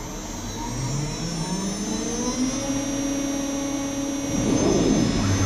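CNC router spindle spinning up: a rising whine that levels off about two and a half seconds in, settling near its set speed of about 16,500 rpm and holding steady. A brief rougher rush of noise comes about four and a half seconds in.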